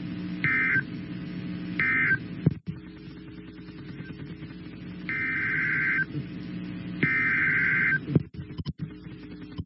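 Emergency Alert System SAME data bursts on a weather-radio broadcast, heard as a harsh two-tone modem screech. First come the last two short end-of-message bursts, then, a few seconds later, two longer header bursts that open the next alert. All of it sits over a low, steady hum on the feed.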